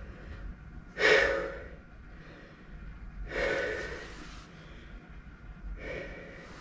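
A man breathing hard through the effort of push-ups: three heavy gasping breaths, the loudest and sharpest about a second in, another about three and a half seconds in, and a softer one near the end.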